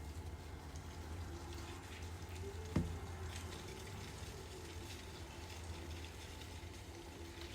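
Wind blowing and dry leaves rustling in a whirlwind, over a steady low rumble, with a single sharp knock a little under three seconds in.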